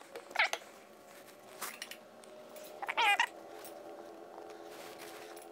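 A cat meowing twice: a brief cry about half a second in and a longer one about three seconds in, with faint clicks between.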